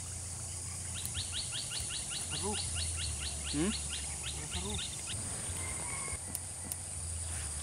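A bird calling with a fast, even run of short rising notes, about five a second, for roughly four seconds, then stopping. Under it is a steady high insect hiss, with faint distant voices now and then.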